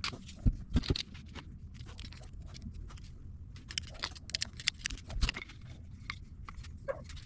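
Winch kit parts and packaging being handled: irregular clicks, knocks and rustling, with sharper knocks about half a second in, at one second, and about five seconds in.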